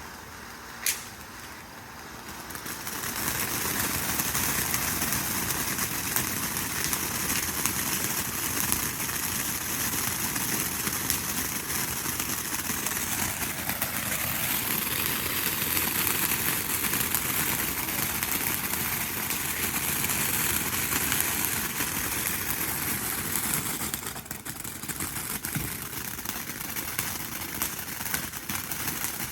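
Ground fountain firework spraying sparks with a steady hiss and crackle. It starts a couple of seconds in, after a short click, runs for about twenty seconds, then dies down near the end.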